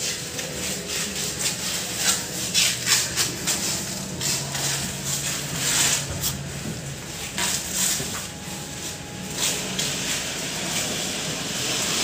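A finger packing thick grease into the open gear housing of a rotary hammer drill: irregular sticky squelches and smacks, over a steady low hum.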